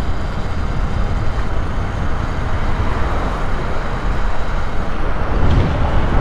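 Steady rushing noise of a Talaria Sting electric dirt bike being ridden: wind on the rider's microphone and tyre noise, with no clear motor tone.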